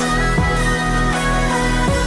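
Background electronic pop music with a steady beat and falling bass swoops, between sung lines.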